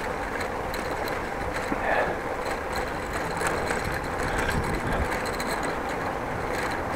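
Bicycle rolling over a brick-paved street: a steady rumble from the tyres on the pavers, with fast small rattles from the bike.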